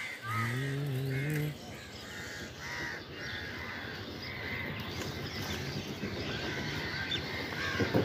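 Crows cawing again and again over steady street noise. A low drawn-out voice sounds for about a second near the start, and a sharp knock comes at the very end.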